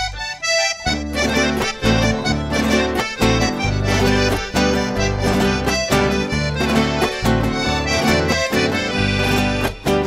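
Instrumental theme music: a few rising single notes lead into the full band about a second in, which then plays on with a steady beat.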